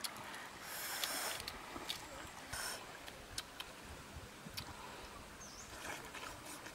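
Faint background noise with scattered light clicks and crackles, two short hisses about a second in and near the three-second mark, and a faint high chirp later on.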